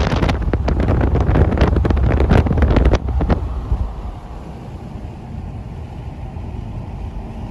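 Wind buffeting the microphone inside a moving car at highway speed for about three seconds, cutting off abruptly. After that comes the steady low rumble of the car's road and tyre noise in the cabin.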